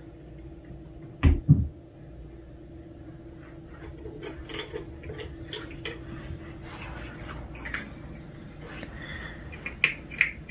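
A cat jumping down from a plastic litter box: two heavy thuds about a second in, then scattered light clicks and taps over a steady low hum.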